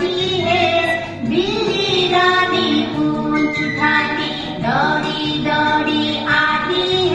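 A song playing: a high singing voice holding long, gliding notes over an instrumental backing track.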